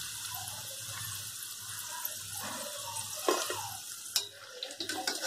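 Batter-coated egg pieces deep-frying in hot oil: a steady sizzle and fine crackle, with a sharp click a little after four seconds in.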